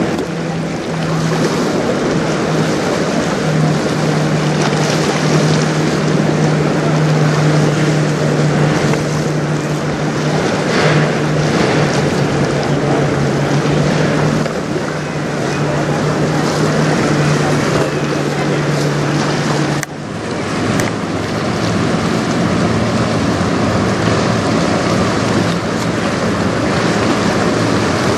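Wind buffeting the microphone over choppy river water, with a steady low engine hum that cuts off abruptly about two-thirds of the way through.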